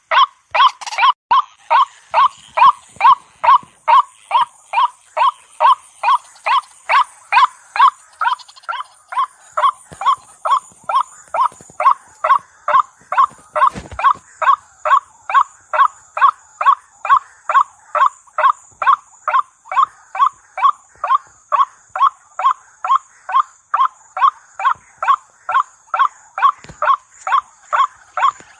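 White-breasted waterhen call, a short harsh note repeated steadily about twice a second. A faint steady high hiss runs behind it.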